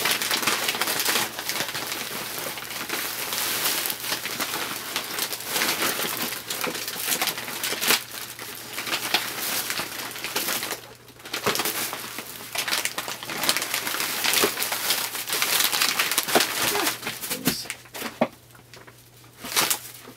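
Plastic shopping bags and a tote bag rustling and crinkling as they are handled and shifted, with a brief lull about eleven seconds in; the rustling dies down near the end.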